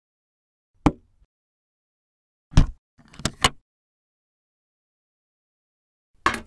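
Plastic cooler box lid being shut and latched: a few separate sharp hard-plastic knocks and clicks, including a quick double click, with dead silence between them. Near the end there is one more sharp clack.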